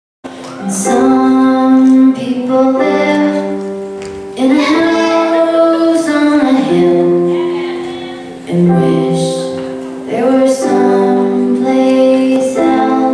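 Music: a song with a woman singing over accompaniment whose chords strike and then fade away. It starts suddenly out of silence just after the beginning.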